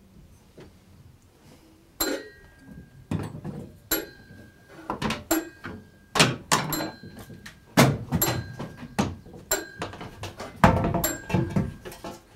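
Irregular metallic clanks and knocks on a metal cooking pot, starting about two seconds in and repeating about a dozen times. Many of them ring briefly at the same pitch.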